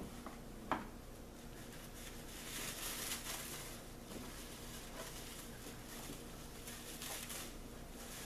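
Thin clear plastic bag crinkling and rustling in the hands as a small doll is unwrapped from it, loudest a few seconds in and again near the end, with a sharp click under a second in.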